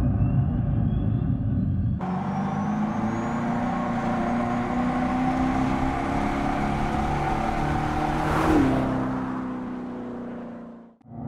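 Dodge Charger Daytona EV's Fratzonic Chambered Exhaust, a speaker-made muscle-car exhaust note: a deep rumble at first, then after a cut a note rising steadily in pitch as the car accelerates. About eight and a half seconds in the pitch drops sharply as the car passes by, and the sound fades away.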